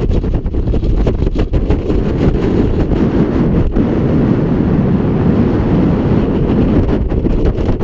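Strong wind blowing across the microphone: loud, gusty buffeting.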